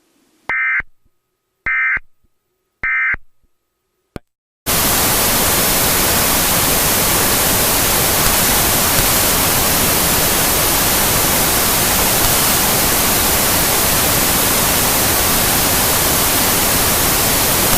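Three short electronic data bursts about a second apart, the end-of-message tones of an Emergency Alert System test. A click follows, and from about five seconds in, loud steady static hiss.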